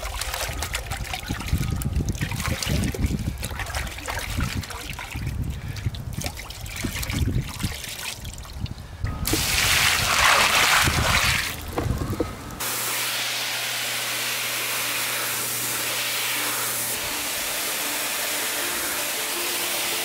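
A bucket of muddy water poured out onto gravel, a loud splashing rush for about three seconds near the middle. It cuts to a pressure washer spraying floor tiles, a steady even hiss with a low hum that runs on unchanged. Music plays faintly throughout.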